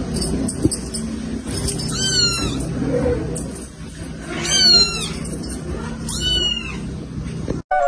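A young kitten mewing: three short, high-pitched mews a couple of seconds apart, each falling in pitch.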